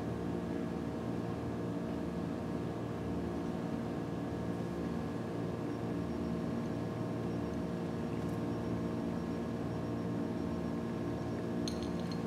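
Steady machine hum made of several held tones, unchanging throughout, with a few faint clicks near the end.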